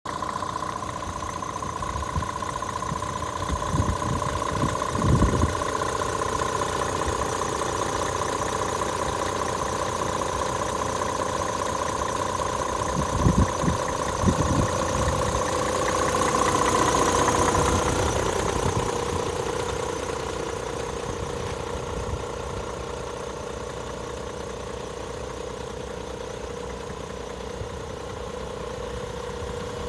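Scania G450's 13-litre six-cylinder diesel idling steadily, swelling louder for a couple of seconds a little past halfway. A few low thumps come in early on and again near the middle.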